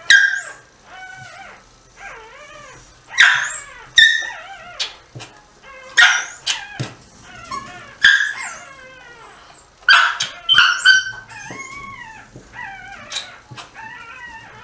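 Newborn dachshund puppy crying: repeated short, high, wavering squeals, one after another, while it is rubbed in a towel and suctioned with a bulb syringe.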